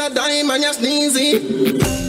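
Music for a dance routine: a vocal line over sharp, regular drum hits.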